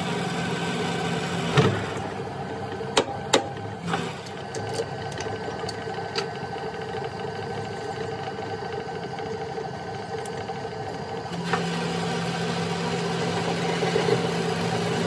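Metal lathe running with its chuck spinning, then shut off with a knock about a second and a half in. While the spindle is stopped there are several sharp metal clinks of tools being handled, and the lathe starts running again a few seconds before the end.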